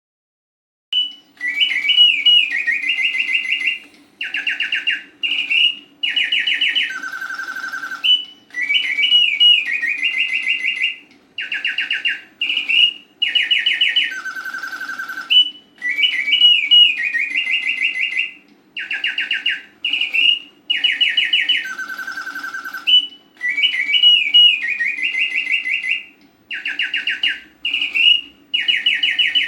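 Bontems singing bird cage automaton singing: a bellows-blown whistle gives a mechanical birdsong of rapid trills, chirps and warbles. It starts about a second in, and the same song sequence repeats about every seven seconds over a steady low hum from the mechanism.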